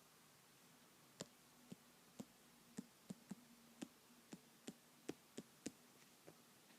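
Faint, irregular light clicks and taps, about a dozen over a few seconds, of a stylus writing on a tablet screen.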